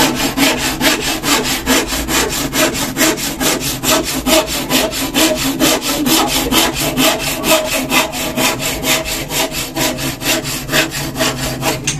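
Handsaw cutting across a wooden plank in fast, even back-and-forth strokes that stop near the end. The saw is very sharp and cuts easily.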